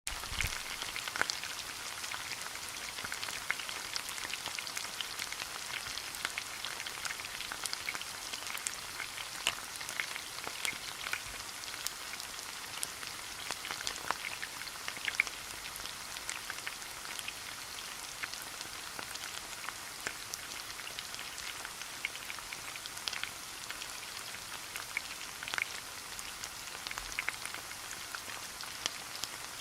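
Food sizzling in a hot frying pan: a steady hiss with frequent irregular crackles and pops of fat.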